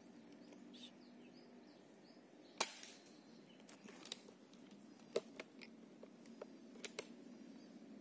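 A single shot from a 300cc PCP air rifle about two and a half seconds in, a sharp crack with a short tail, followed by a few lighter clicks.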